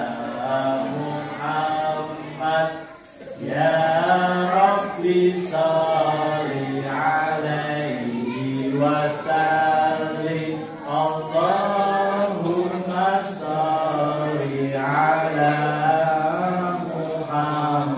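Voices chanting an Islamic devotional song in long melodic phrases, with a short break for breath about three seconds in.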